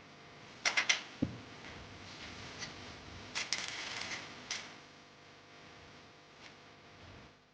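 Scattered sharp clicks and knocks, as of small parts and tools being handled: a quick run of three clicks about a second in, a duller knock just after, then another cluster of clicks between about three and a half and four and a half seconds.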